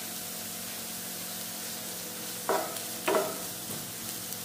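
Chopped onions with green chilli, curry leaves and ginger-garlic paste sizzling steadily in hot oil in a nonstick frying pan. A wooden spatula scrapes and stirs them in a few short strokes, the clearest two about halfway through.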